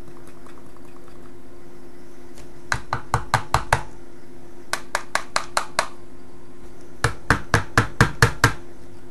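Plastic bait container knocked or tapped in three quick runs of about seven sharp knocks each, as maggots are tipped out of it.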